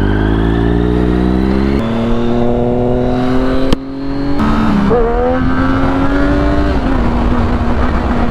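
Triumph Daytona 675's inline three-cylinder engine pulling under acceleration. Its pitch climbs, breaks abruptly about two and four seconds in as gears change, then holds steady near the end, with wind noise over it.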